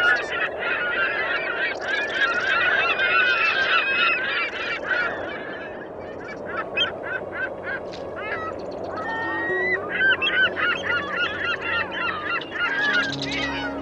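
A large flock of birds calling, many short honking calls overlapping in a continuous, noisy chorus.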